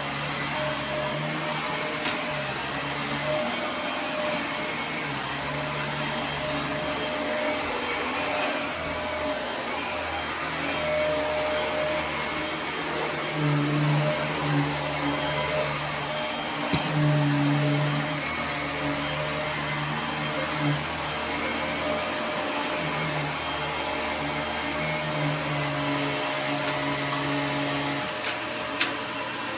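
Dyson DC24 upright vacuum cleaner running steadily, with a steady high motor whine over the airflow noise and a lower hum that comes and goes. There is a short click near the end.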